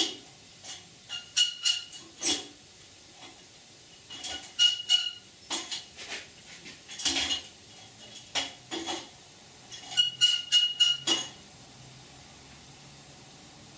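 Steel parts clinking and clanking against each other in irregular bursts, many hits leaving a short metallic ring, as a clamp is fitted to hold a small sheet-metal piece for hole-sawing. The clatter stops about eleven seconds in.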